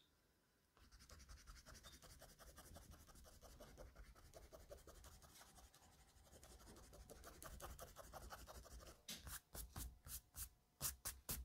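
Faint, quick back-and-forth rubbing strokes on drawing paper, about ten a second. Near the end come slower, louder sweeps of a hand across the sheet.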